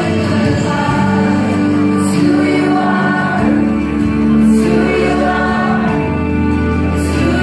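Music with singing: a Christian children's song with a sustained bass line.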